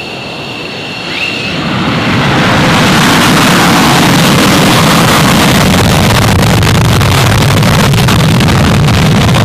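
F-15E Strike Eagle's twin Pratt & Whitney F100 turbofans whining at low power, then spooling up to full afterburner about a second and a half in for the takeoff roll. The high whine gives way to a loud, steady rush of jet noise that holds from about two seconds in.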